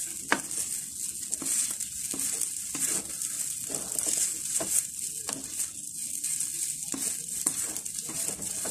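Yellow noodles stir-frying in a wok with a wooden spatula: a steady sizzle in the oil, broken by irregular scrapes and knocks of the spatula about once or twice a second as the noodles are tossed to cook them through.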